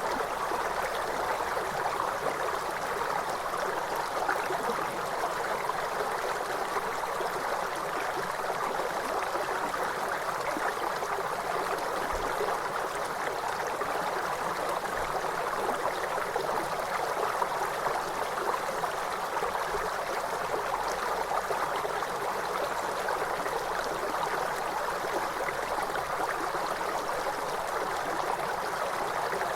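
A river flowing, its water making a steady, even rush that never breaks or changes.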